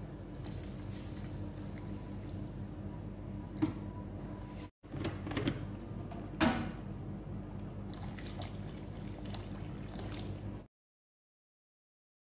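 Boiling water poured in a thin stream into a ceramic bowl of dried shiitake mushrooms, over a steady low hum, with a few sharp knocks of the bowl or tray. The sound cuts out shortly before the end.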